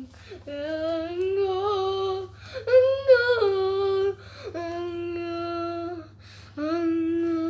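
A child singing a string of long held notes, about five in all, each held steady for a second or so with short breaths between.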